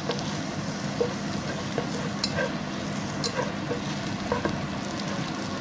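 Chopped onion and garlic sizzling in hot peanut and sesame oil in a pot, with a spatula stirring them and clicking against the pan now and then.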